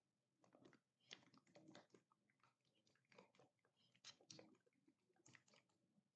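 Slime being squished and kneaded by hand: faint, irregular sticky crackles and pops in short clusters.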